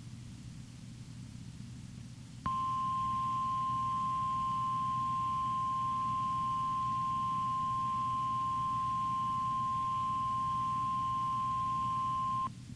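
NOAA Weather Radio 1050 Hz warning alarm tone: one steady, piercing single tone about ten seconds long that starts sharply a couple of seconds in and cuts off abruptly, announcing a warning broadcast. A low receiver hum sits under it throughout.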